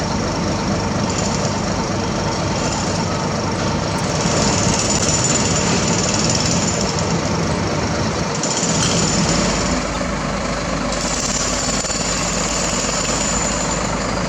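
Heavy construction machinery running, a steady, dense mechanical noise with a rattling quality. A thin high tone rises above it for several seconds at a time, starting about four seconds in and again near the end.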